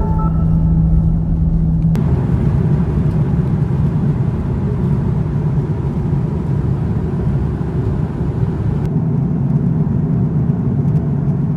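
Steady low rumble of a running road vehicle, with an abrupt change about two seconds in.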